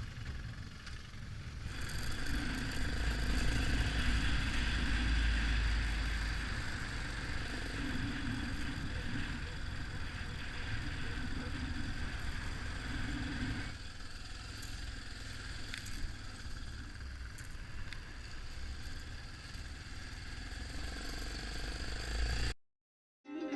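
Yamaha XT 600 motorcycle, its single-cylinder engine running while riding, with rattling and clatter. It gets louder about two seconds in, eases back a little past halfway, and cuts off abruptly near the end.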